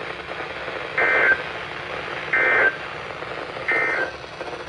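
Three short bursts of NOAA Weather Radio EAS SAME data tones, evenly spaced about a second and a half apart over steady radio hiss: the end-of-message signal that closes the weekly test broadcast.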